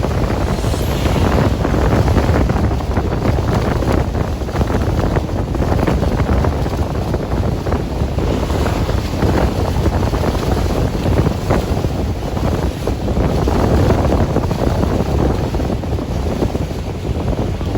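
Wind buffeting the microphone: a steady, dense noise heaviest in the low end, with no breaks.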